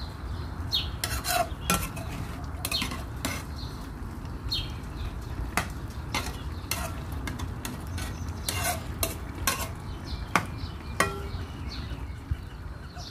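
A spatula stirring chicken pieces in a metal pan, making irregular scrapes and clinks against the pan's sides and bottom, over a steady low rumble.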